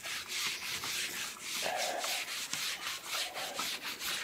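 Cloth rag rubbed briskly back and forth over a sanded pecky cypress board, a quick run of swishing strokes, several a second, as the sanding dust is wiped off.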